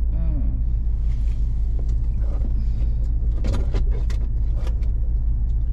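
Steady low rumble of a car's road and engine noise heard from inside the cabin while driving, with a few short clicks and rustles about three and a half seconds in.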